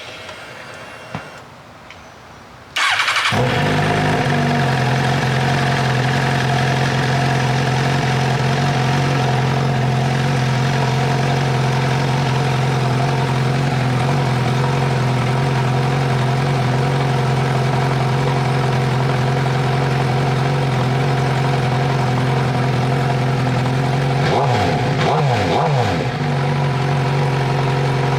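The inline-four engine of a 2014 Suzuki GSX-R1000 starts after its oil change, catching suddenly about three seconds in. It then settles into a steady idle on fresh oil, with a brief swell near the end.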